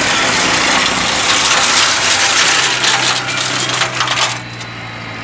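Tractor-mounted HUMUS flail mulcher shredding vine prunings: a loud, dense crackling and splintering of wood over the tractor engine's steady hum. About four seconds in the crackle drops away, leaving a quieter steady engine hum.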